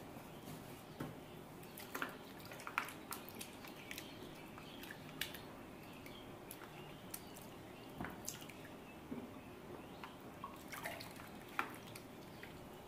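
Hands rinsing bell peppers and cucumbers in a plastic bucket of water: faint, irregular small splashes and drips.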